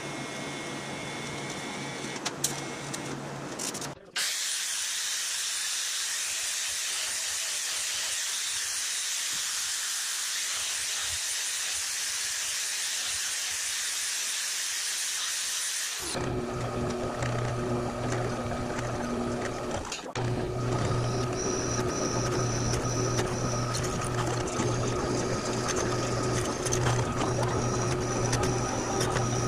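A string of metalworking sounds: a TIG welding torch buzzing for about four seconds, then an angle grinder hissing steadily against a metal fitting for about twelve seconds, then a drill press motor humming with a steady whine while drilling a flat metal part.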